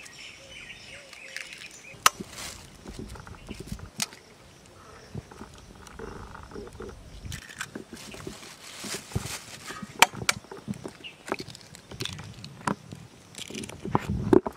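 Eggs knocked and cracked against a stainless steel plate: a string of sharp clicks every second or two, with a plastic bag rustling about the middle. Birds chirp near the start.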